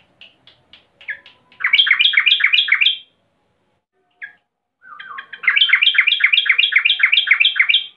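Female yellow-vented bulbul (trucukan) calling in an agitated chatter: a few short single notes, then a fast run of repeated notes about five a second. After a brief pause a second, longer run follows, ending near the close. This is the excited female call used to stir a male bulbul into full song.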